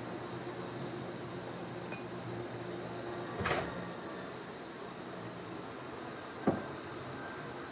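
Microwave oven running with a steady low hum. There are two knocks: one about three and a half seconds in and a sharper, louder one near the end.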